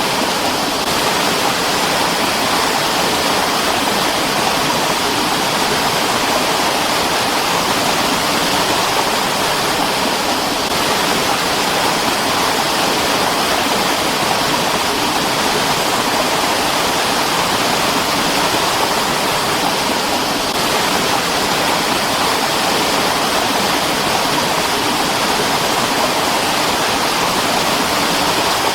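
Mountain stream: water rushing and splashing over rocks, a steady full hiss with no let-up.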